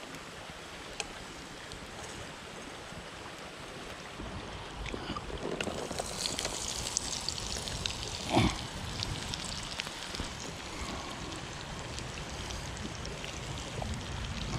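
Diced onions sizzling in oil in a skillet over a campfire, with fine crackling ticks. The sizzle comes in louder about five seconds in, and there is a short loud knock about eight seconds in.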